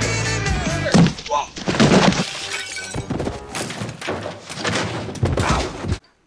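Movie soundtrack cut together from several slapstick scenes: thuds and crashes of people falling and something shattering, over music with short bursts of voices. It cuts off suddenly near the end.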